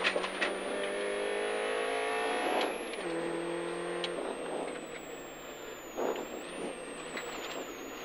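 Rally car engine heard from inside the cabin, pulling hard with its pitch rising for about three seconds, dropping suddenly at a gear change, then easing off after about four seconds as the car runs on over a rough, muddy road with a few bumps.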